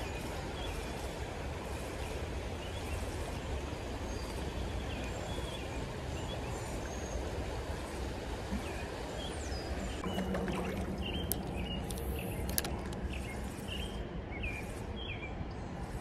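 Shallow creek water running over stones, a steady rushing noise, with faint bird chirps that come more often in the second half and a few sharp clicks.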